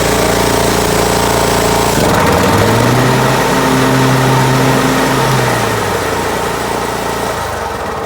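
Zero-turn mower's engine running steadily, then revved up about two seconds in, held at the higher speed for a few seconds, and let back down towards idle. The engine runs smoothly after its repairs.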